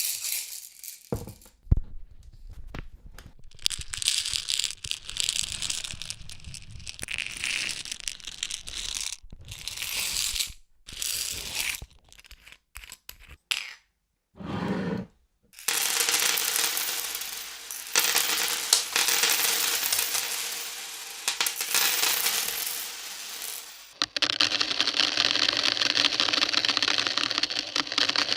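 Coins shaken and rattling inside a bottle, a dense jangle of many small metal clicks. It comes in several separate takes, split by brief silences, and runs denser and more continuous in the second half.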